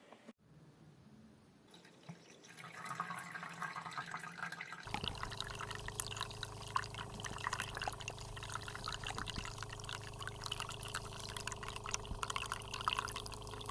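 Vitek thermopot's water-delivery pump switching on about a third of the way in and humming steadily while water pours and drips; a faint trickle comes first.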